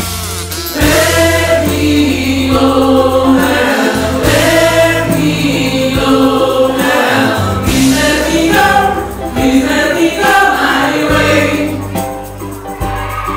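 Choral music: a choir sings a melody over sustained low bass notes from the accompanying instruments.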